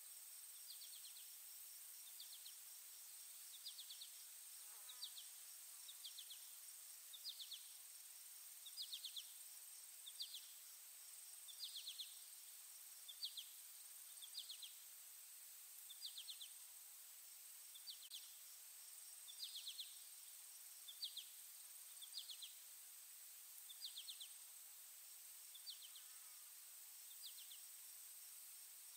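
Faint insects chirping: short pulsed chirps about once a second, cricket-like, over a steady thin high-pitched hum.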